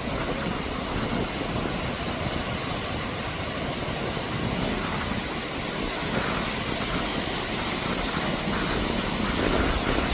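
Strong wind buffeting the microphone, a steady rushing noise with a vehicle engine running underneath.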